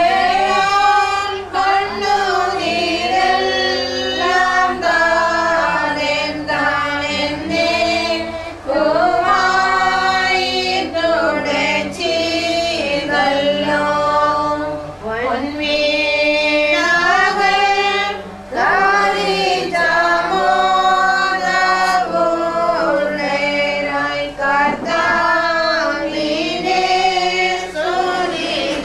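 A group of voices singing a slow hymn together, women's voices to the fore, in long held phrases with brief pauses between them.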